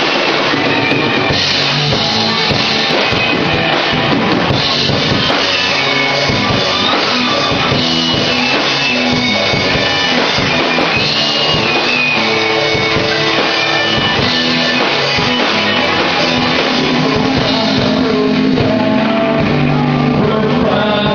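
Live rock band playing instrumentally, with drum kit, electric guitar and bass going steadily.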